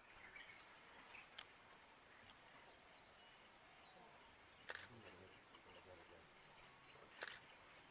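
Near silence: faint outdoor ambience with a few short, rising bird chirps and three soft clicks.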